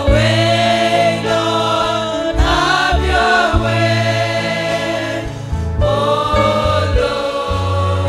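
Slow gospel worship music: a woman's singing voice through a microphone, holding long wavering notes, over sustained low instrumental chords.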